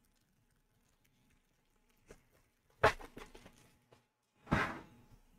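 Hockey trading cards being handled and shuffled through by hand. A sharp snap of a card comes about three seconds in, followed by a few light clicks, then a short swish near the end.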